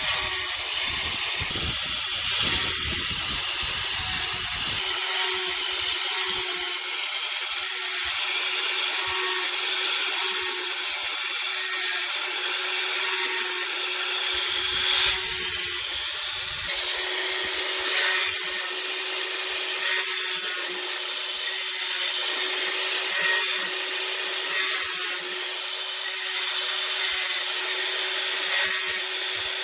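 A power tool running with a steady motor hum under a harsh hiss as it works material, swelling in loudness roughly every second and a half as it bears on the work.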